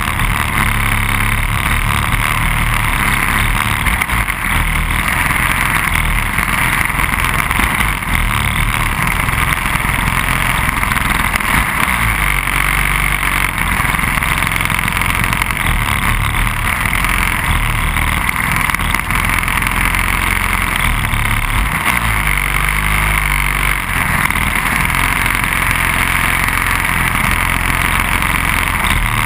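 Briggs & Stratton Animal single-cylinder four-stroke kart engines idling with the karts standing still, a loud, steady running with a shifting low end.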